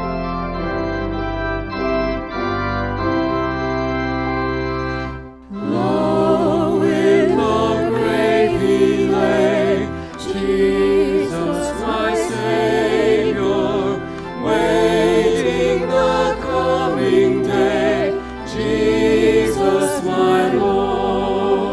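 Organ playing held chords as the introduction to an Easter hymn. About five seconds in it breaks briefly, then voices come in singing the first verse with vibrato over the organ accompaniment.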